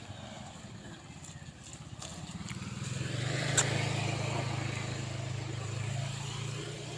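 A motorcycle engine running close by with a steady low hum, growing louder about two and a half seconds in and easing off near the end, with one sharp click midway.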